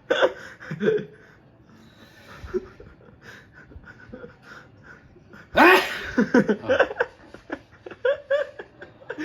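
A man sneezes once, loud and sudden, a little past halfway, followed by a few seconds of laughter.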